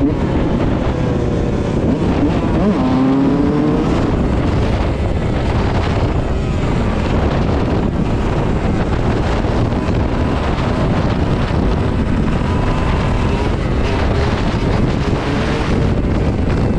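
Yamaha YZ125 two-stroke dirt bike engine running hard under throttle, its revs climbing about three seconds in, then held through a long wheelie. Heavy wind buffeting on the on-board microphone covers much of the engine note.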